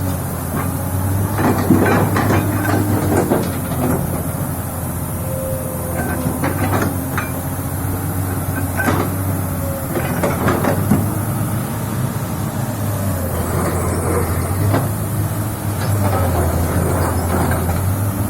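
Komatsu PC200-7 excavator's six-cylinder diesel engine running steadily, with irregular short hisses and knocks over the engine note.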